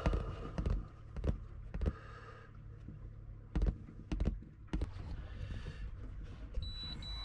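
Clicks and knocks of a plastic sun cover being handled and lifted off a Raymarine chart plotter. About six and a half seconds in, the plotter starts a high repeated beeping: its alarm sounding for a lost position fix.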